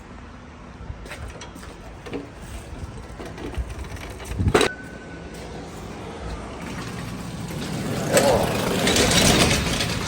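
Scattered knocks from heavy equipment being handled, with one sharp metallic clank about halfway through that rings briefly. A rising rustle and scraping comes near the end.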